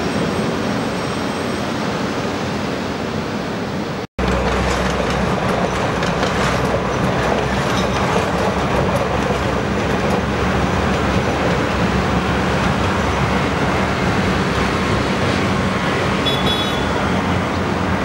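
Surf and wind noise, then after a sudden cut about four seconds in, a diesel passenger train running past on a seaside line: a steady low rumble with the wheels clattering over the rails, and a brief high whine near the end.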